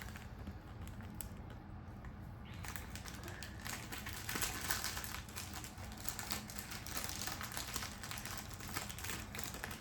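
Craft cubes and their plastic packaging being handled: a dense crinkling with many light clicks, starting a couple of seconds in.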